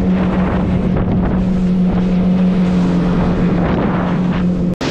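Outboard motor of a small aluminium boat running steadily under way, a constant engine hum over water rush, with wind buffeting the microphone. A brief dropout near the end.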